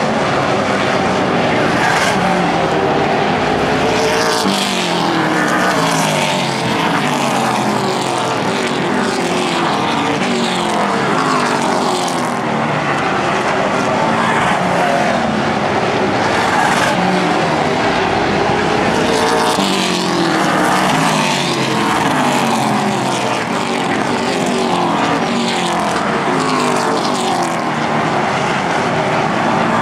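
A pack of pro stock race cars' V8 engines running at racing speed around an oval. Their notes keep sweeping up and down as car after car passes close by.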